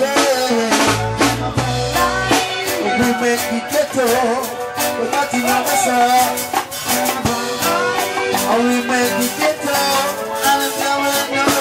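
Live reggae band playing, with vocalists singing over drums, guitar and bass guitar. The low bass drops out about two and a half seconds in.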